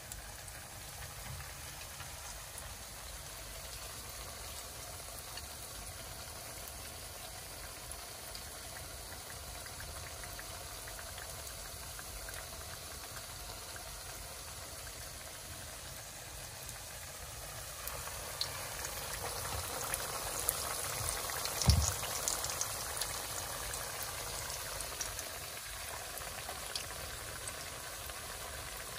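Steady sizzling, bubbling hiss with fine crackles, louder for several seconds about two-thirds of the way through, with one dull knock at its loudest point.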